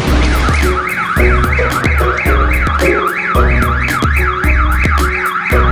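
Car alarm wailing, an electronic tone sweeping up and down fast, about three times a second, over background music with a steady bass beat.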